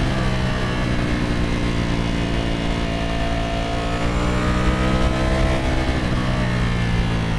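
Ducati Streetfighter V4S's 1103 cc V4 engine and exhaust under way, its note dropping at the start, then climbing slowly for about five seconds as the bike accelerates, and easing off a little near the end.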